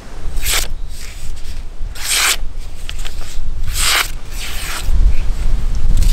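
Large handmade bushcraft knife blade slicing through a hand-held sheet of paper: three short rasping swishes, about one every second and a half to two seconds. A low rumble runs underneath and grows louder near the end.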